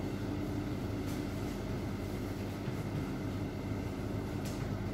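Steady low room hum, with a couple of faint taps of chalk on a blackboard as writing goes on.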